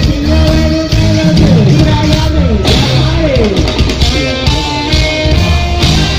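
Live rock band playing loudly through a concert PA, electric guitar prominent, with sliding guitar notes.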